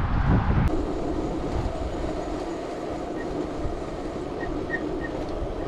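Rolling road noise of a touring bicycle riding on a rough concrete road, heard from a handlebar-mounted camera, with a faint light tick repeating about three times a second. Wind buffets the microphone briefly at the start.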